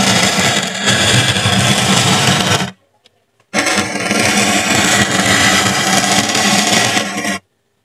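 Hot-tipped pen-like tool being dragged across polystyrene foam, melting grooves into it: a loud, continuous noise over a steady low hum. The sound comes in two stretches, broken by about a second of silence near the middle, and stops shortly before the end.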